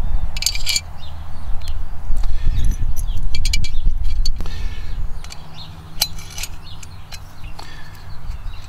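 Small metal hardware (screws, washers and track nuts) clinking and clicking as the aluminium knuckle tubes and gussets of a kayak landing-gear kit are handled and fitted together, with a low rumble through roughly the first half.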